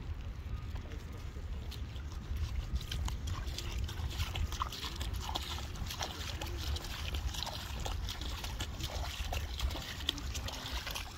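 A dog wading in shallow seawater, splashing and sloshing the water at its mouth and legs in quick irregular splashes, over a steady low rumble.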